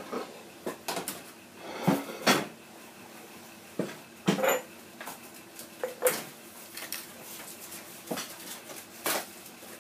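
Irregular handling sounds of unpacking an RC boat kit: several sharp knocks and clicks of plastic parts set down, with rustles of packaging in between.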